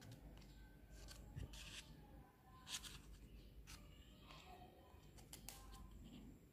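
Scissors snipping through paper folded into several layers: a few faint separate cuts, the sharpest a little under three seconds in.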